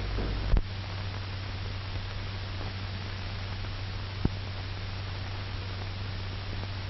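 Steady hiss and low hum of an old 1940s film soundtrack between narration lines, with a faint click about half a second in and a sharper click a little past four seconds.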